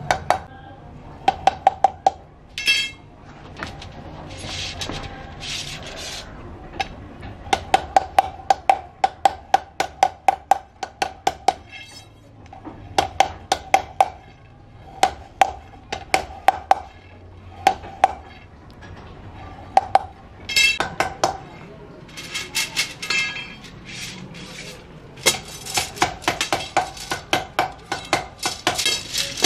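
Wooden mallet striking thin metal heater-element rods on a wooden beam, in runs of quick strikes, each with a short metallic ring. A denser clatter of rods comes near the end.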